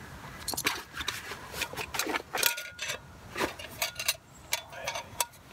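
A metal canteen cup and a canteen being handled: irregular clinks and knocks of metal, with rubbing from the canteen's fabric cover between them and one brief ring from the cup.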